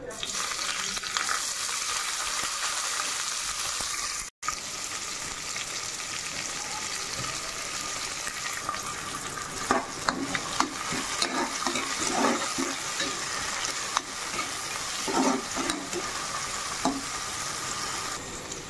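Sliced onions sizzling in hot oil in a pressure cooker pot, with a momentary break about four seconds in. Later, a ladle scrapes and clinks against the pot in short strokes as the onions are stirred.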